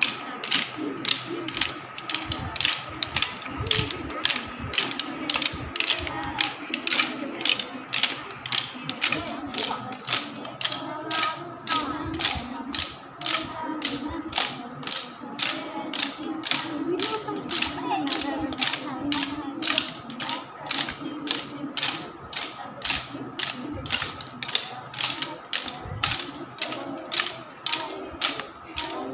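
Wooden dance sticks struck together in a steady rhythm, about two sharp clacks a second, over a faint steady high tone.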